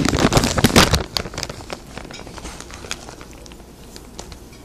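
Plastic packaging of sliced turkey crinkling and crackling as it is opened, densest and loudest in the first second, then a few sparser crackles.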